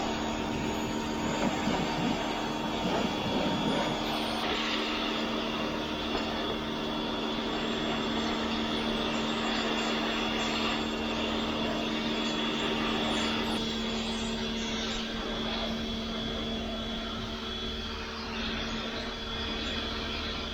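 Pressure washer running steadily, its motor drone over the hiss of the water spray; the motor's pitch shifts about two-thirds of the way through.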